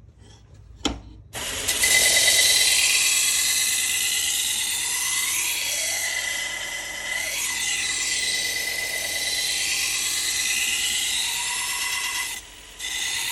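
Harbor Freight 1x30 belt sander starting up about a second in and grinding steel on a 3M Cubitron II belt, with a steady high whine under the rasping of the butcher knife's blade against the belt as a new bevel is ground. The sound drops away briefly near the end, then resumes.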